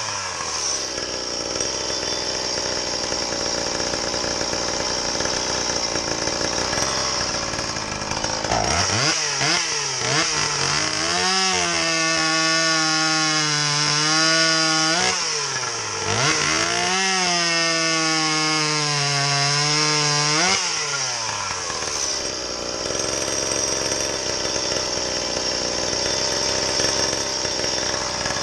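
Stihl MS170 30cc two-stroke chainsaw, modified with a homemade exhaust pipe, making test cuts in wood. It runs under load in the cut for about the first eight seconds. It then revs freely at high pitch in two long steady runs, with a drop in revs between them, and goes back under load for the last several seconds.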